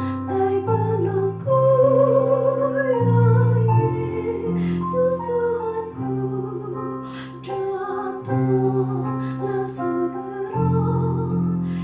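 A woman singing a hymn in Indonesian, accompanied by an electronic keyboard playing held chords that change every second or two.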